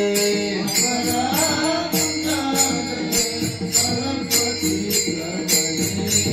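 Instrumental passage of Varkari bhajan music: held notes and a wandering melody, typical of a harmonium, over a steady beat of small brass hand cymbals (taal) struck several times a second.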